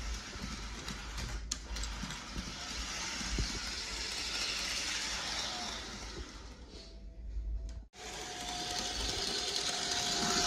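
HO scale GP40-2R model locomotive running around its track, its small electric motor and gears giving a steady whir. It dips and cuts out for a moment about eight seconds in, then comes back with a thin steady whine over it.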